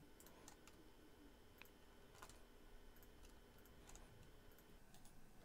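Near silence: room tone with a low hum and a dozen or so faint, irregular clicks from a computer mouse and keyboard.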